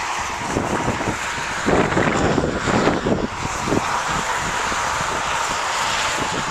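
Strong wind buffeting the microphone, with footsteps crunching in snow about twice a second.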